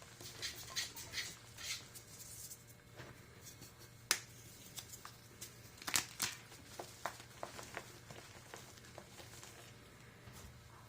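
Gym chalk being crushed, giving irregular dry crunches and crackles. They are busiest in the first couple of seconds, with single sharp snaps about four and six seconds in, then thin out toward the end.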